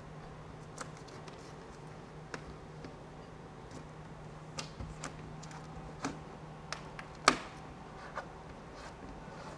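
Scattered faint clicks and crackles of fingers and a plastic applicator pressing stretchy butyl tape around a pipe onto an airtight membrane, the sharpest about seven seconds in, over a low steady hum.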